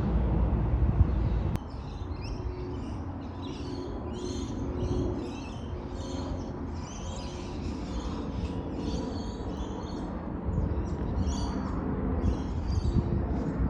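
A loud low rumble cuts off suddenly about a second and a half in. Small birds then chirp in quick repeated calls over a quieter low rumble.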